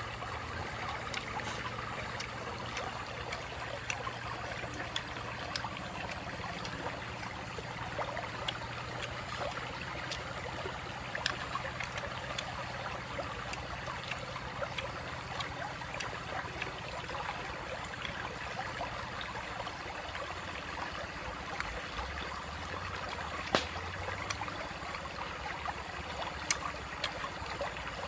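Shallow rocky stream flowing steadily over stones, with a few scattered sharp clicks, the loudest about two-thirds of the way through.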